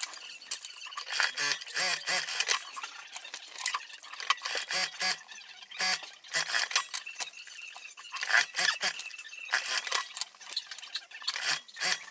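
Irregular rustling of cotton fabric with light clicks and taps as a lining seam is fed by hand through a sewing machine and plastic sewing clips are handled.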